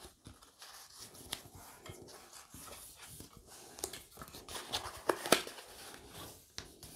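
Black cardstock being folded and creased along its score lines with a bone folder: soft rustling and sliding of paper with scattered sharp scrapes, the loudest a little past five seconds in.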